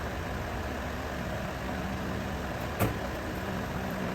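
Steady low background rumble and hiss with a faint hum, and a single sharp click just under three seconds in.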